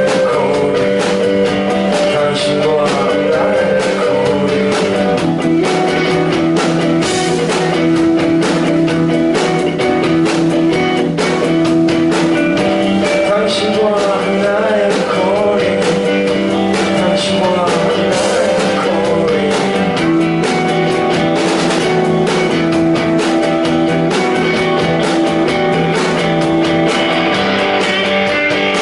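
Live rock band playing, with guitars and drums, and a wavering melodic line that may be a voice or a lead guitar.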